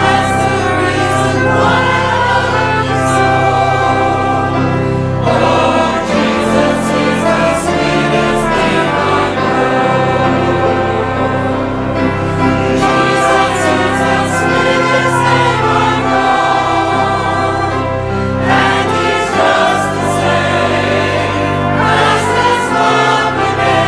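Church choir singing a gospel chorus.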